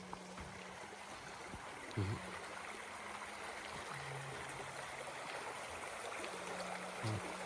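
Creek water running steadily, with a couple of short dull thumps about two seconds in and near the end.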